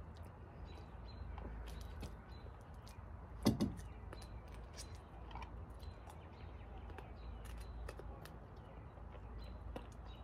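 Faint clicks of cutlery against plates over a low steady rumble, with one short louder sound about three and a half seconds in.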